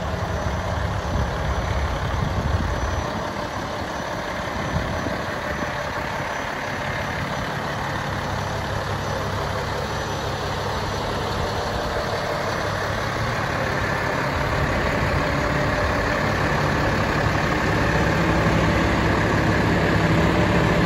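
The Cummins ISC 8.3L inline-six diesel of a Freightliner M2 106 dump truck idling steadily, growing louder toward the end.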